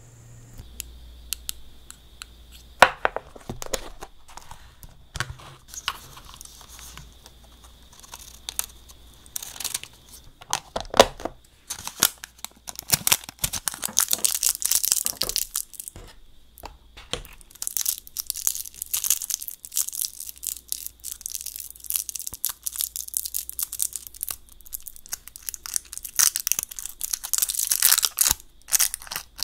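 A sheet of iridescent nail art foil being crumpled and crinkled by hand, then smoothed out again. Scattered sharp crackles come first; from about halfway in the crinkling is dense and continuous.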